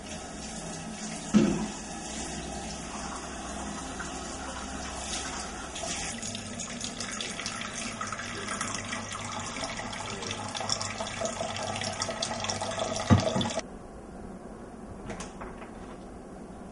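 Kitchen tap running into a stainless steel sink as hands wash up, with a sharp knock about a second in and another just before the water is turned off, about three-quarters of the way through. After that only faint room sound remains.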